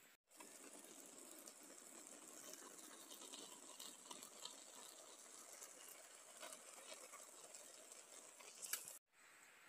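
Faint hiss and small crackles of a pot of rice cooking over a small camp stove, with a few light clicks.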